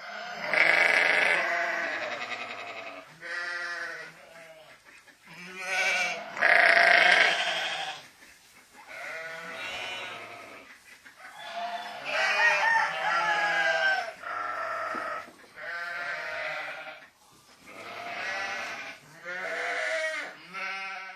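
Sheep bleating over and over: about ten calls of varying length and pitch, some drawn out for a couple of seconds, others short, with brief pauses between them.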